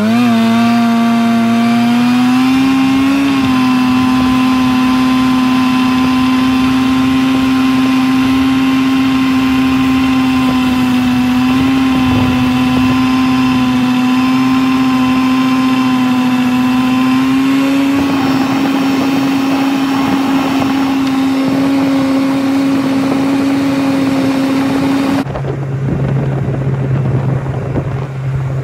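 Snowmobile engine running at speed under the rider: its note climbs over the first few seconds, then holds steady. Near the end it changes abruptly to a lower, steady engine note.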